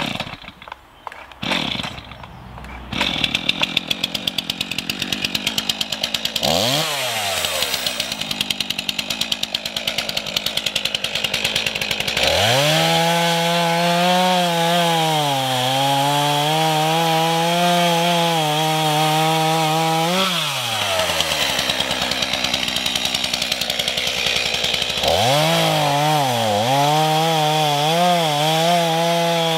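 Stihl chainsaw started with a few pulls, then idling with one brief blip of the throttle. About twelve seconds in it revs up and cuts through firewood logs, its pitch sagging and recovering as the chain bites. It drops back to idle for a few seconds, then revs and cuts again near the end.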